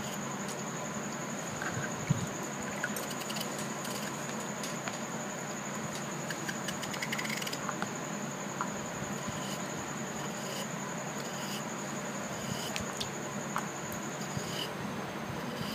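Knife cutting a raw peeled potato, held in the hand, into fry sticks: scattered small clicks and taps as the blade goes through and the sticks drop into a tub of water. A steady thin high whine and a low hum run underneath.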